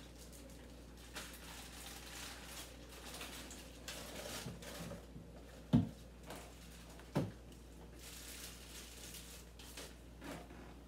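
Food packages and containers being handled and rustled at an open refrigerator, with two sharp knocks about six and seven seconds in, as items are set down or bumped.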